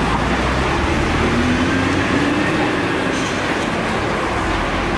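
Steady street traffic rumble, with a vehicle's engine note rising and then falling in the middle.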